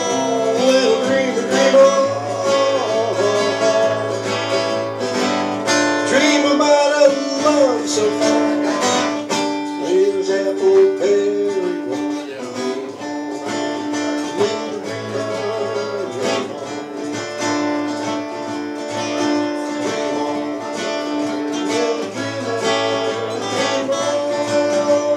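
Two acoustic guitars playing together live, an instrumental passage of the song with plucked and strummed notes ringing over a steady rhythm.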